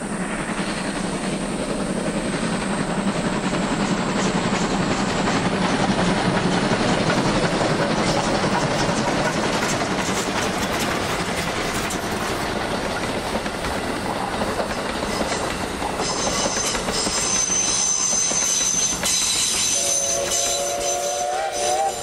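A steam-hauled passenger train runs close past: the locomotive, working hard, and then the rumble and clatter of its coaches rolling by on the track. High steady tones join in over the last few seconds.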